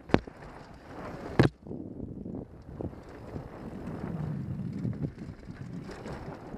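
Downhill mountain bike rolling fast over a rough dirt trail: a steady rumble of tyres on dirt and rocks, the bike rattling, and wind buffeting the microphone. Two sharp knocks ring out just after the start and about a second and a half in as the bike hits bumps, with smaller clatters after them.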